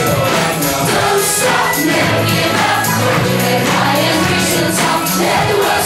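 Wrestling entrance music: a song with singing voices over held bass notes and a steady beat.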